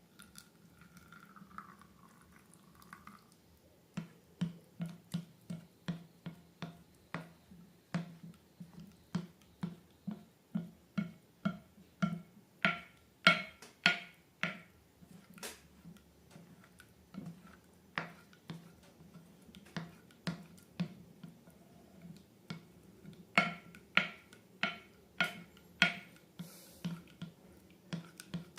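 Slime being squeezed and pressed, giving a run of sharp popping clicks about twice a second that starts about four seconds in and comes in bursts with short pauses.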